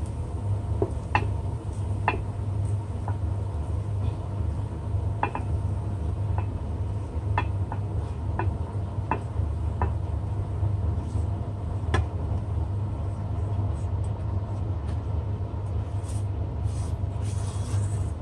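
Fried rice being pushed out of a non-stick wok into a ceramic bowl with a silicone spatula: scattered sharp clicks and taps of the wok and spatula against the bowl, about a dozen, most of them in the first twelve seconds. Underneath runs a steady low machine hum.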